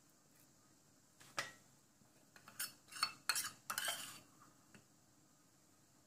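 Table knife clinking and scraping against a stainless steel plate as green chutney is spread on bread: one sharp clink about a second in, then a quick cluster of clinks and scrapes lasting a second and a half.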